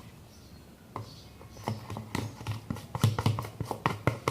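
Slime being stirred in a bowl as it thickens: a run of quick sticky clicks, several a second, starting about a second in.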